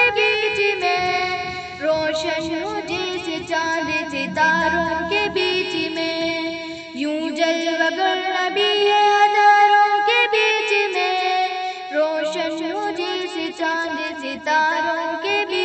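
A woman's voice singing an Urdu naat, a devotional song in praise of the Prophet Muhammad, in long held notes with wavering pitch.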